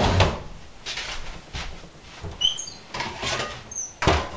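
Kitchen handling sounds: a series of short knocks and scrapes, the loudest near the end, with a few brief high squeaks in between.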